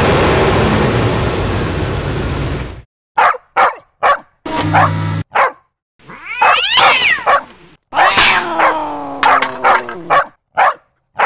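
A car engine sound effect that cuts off abruptly about three seconds in. Then comes a string of short animal barks and yelps, dog- and cat-like, with a long wavering whine in the middle.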